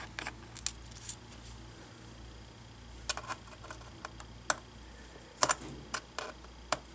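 Precision screwdriver with a 1.2 mm pentalobe bit turning screws out of a MacBook Pro's aluminium bottom case: scattered small, sharp clicks of the bit and screw, with several close together about five and a half seconds in.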